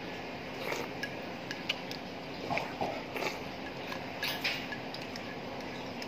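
Scattered light clinks and scrapes of a metal spoon against a ceramic plate during a meal, over a steady low hum.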